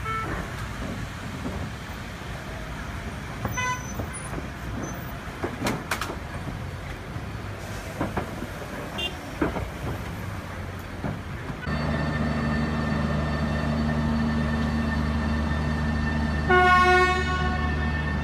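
Busy street traffic with a couple of short car-horn toots. It then changes suddenly to a steady low hum from a green passenger train standing at the platform, and near the end a horn sounds once, loudly, for under a second.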